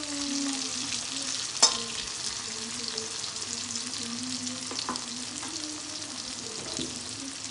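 Sliced onions sizzling in hot oil in an aluminium kadhai as a steel ladle stirs them, with a sharp clink of the ladle against the pan about one and a half seconds in. The onions are being fried on high flame until they turn pink.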